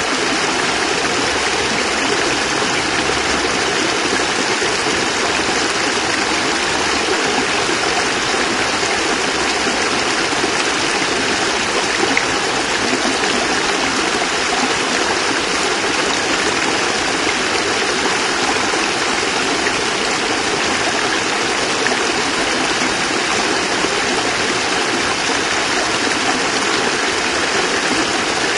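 Water of a small cascade falling and splashing into a stream, a steady, even rush.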